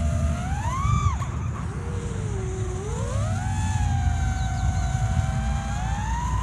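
Freestyle FPV quadcopter's brushless motors whining, the pitch following the throttle: a sharp climb and drop about a second in, a dip, then a rise that holds high and climbs again before falling near the end, over a low rumble.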